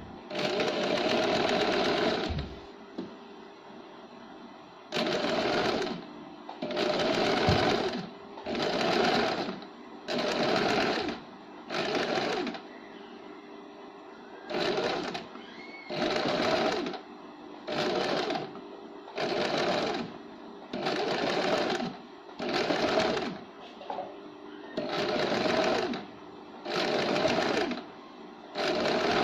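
Small electric sewing machine stitching gold lace trim onto a blouse neckline. It runs in short bursts of about a second, stopping briefly between them, well over a dozen times.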